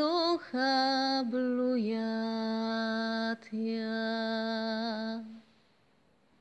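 A woman singing a slow folk song, holding long notes with a light vibrato; the singing stops about five seconds in, leaving near silence.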